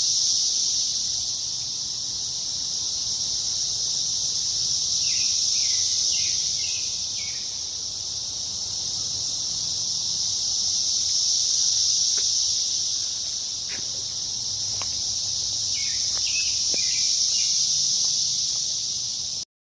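A chorus of cicadas: a steady high-pitched buzzing hiss that slowly swells and fades, with a few short chirps about five and sixteen seconds in. It cuts off suddenly near the end.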